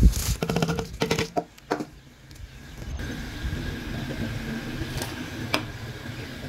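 Raw rice poured from a plate into a pot of boiling water: a splash, then about two seconds of grains rattling and clicking against the pot. After that, a steady low rumble of the pot at the boil, broken by two sharp clicks.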